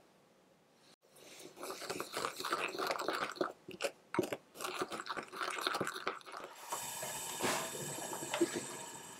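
Wooden spoon stirring a thick, wet dipping sauce in a glass bowl: irregular scraping, sloshing and light taps against the glass. From about seven seconds in there is a steadier hiss instead, with a couple of soft knocks.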